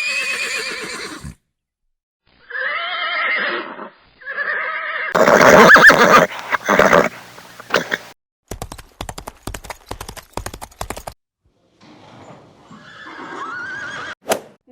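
A horse neighing several times, wavering calls of a second or so each with the loudest in the middle, followed by a few seconds of hooves clip-clopping on hard ground, then another neigh near the end.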